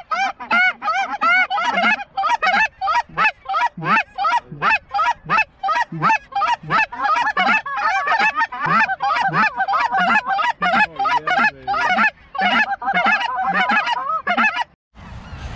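Goose calls blown fast and without pause: a steady run of short honks and clucks, about three a second, each breaking sharply upward in pitch. Hunters are calling to a flock of geese circling overhead to bring them into the decoys.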